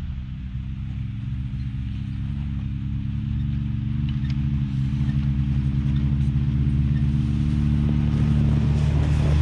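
Can-Am Maverick X3 X RC Turbo RR's turbocharged three-cylinder engine running at a low, steady speed as the side-by-side crawls closer, growing gradually louder.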